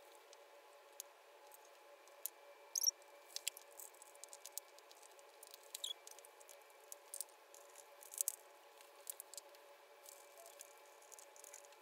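Faint scattered taps and clicks of Play-Doh balls and plastic cookie cutters being set down and shifted about on a wooden tabletop, with a couple of short squeaks, over a low steady hum.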